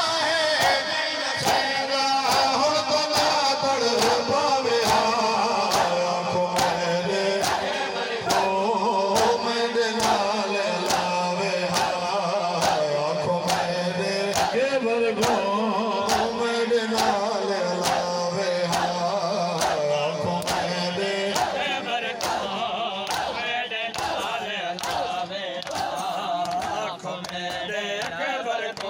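Men chanting a noha together in Urdu-style lament, over matam: open hands striking chests in a steady beat about twice a second.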